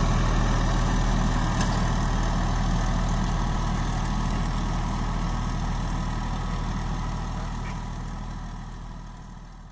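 Farmtrac Atom 26 compact tractor's three-cylinder diesel engine running steadily under load as it pulls a three-furrow ridger through the soil. It grows steadily fainter, falling off more quickly near the end.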